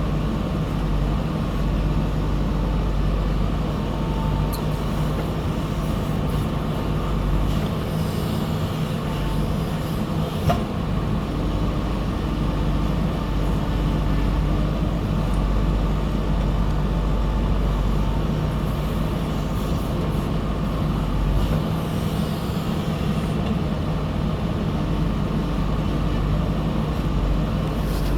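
Backhoe loader's diesel engine running steadily with a deep rumble that eases off twice and comes back, and one sharp knock about ten seconds in.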